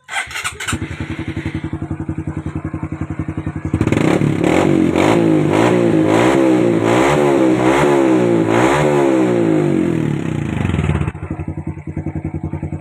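Honda XRM 125's single-cylinder four-stroke engine running through its freshly remounted exhaust pipe: idling, then revved in quick repeated blips, about one every 0.7 s, for some seven seconds, then dropping back to a steady idle.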